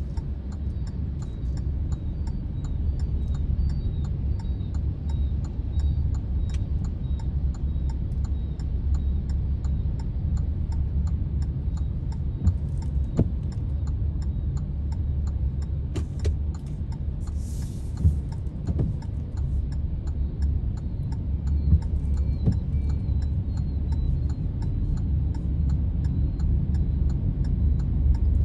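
Car driving on the road, heard from inside the cabin: a steady low rumble of engine and tyre noise, with a faint regular ticking several times a second, a few light knocks, and a brief hiss about two-thirds of the way through.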